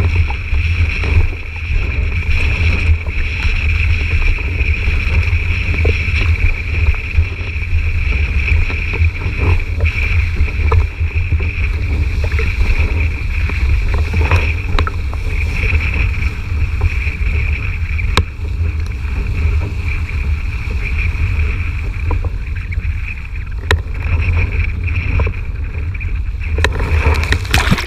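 Wind buffeting a GoPro mounted on a windsurf boom, a loud, steady rumble with a steady high whistle over it, while the board runs through choppy water. A few sharp clicks are scattered through it.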